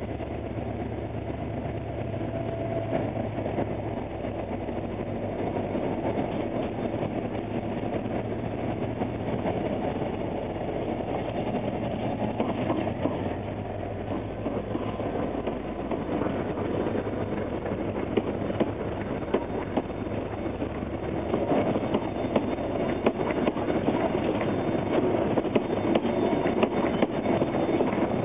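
Diesel locomotive engine running with a steady low hum, then a rake of InterCity passenger carriages rolling slowly past close by. Their wheels click over the rail joints, the clicks growing louder and more frequent over the last ten seconds.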